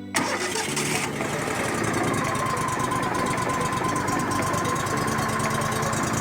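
WoodMizer LT35HD band sawmill's engine running steadily, coming in abruptly, with a faint steady whine from about two seconds in.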